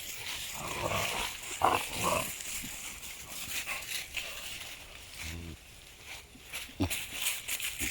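Playing puppies growling and grunting in a few short sounds with pauses, one of them a low growl a little after five seconds in.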